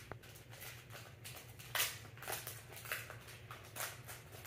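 Pokémon booster pack's foil wrapper crinkling as it is torn open by hand, in a run of short rustles, the loudest about two seconds in.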